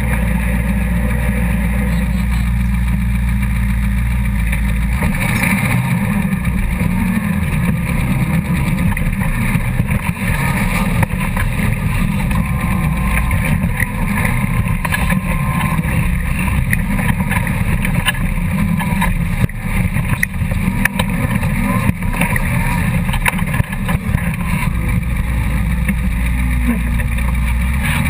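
Off-road buggy engine, idling steadily at first, then revving hard and running under load as the buggy is driven, its note rising and falling and choppy, and settling back to a steady idle near the end.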